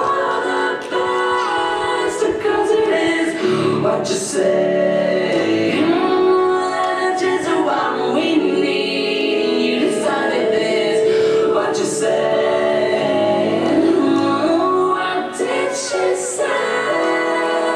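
Dance music: a song sung by a woman's voice layered in close harmony, with little or no instrumental backing.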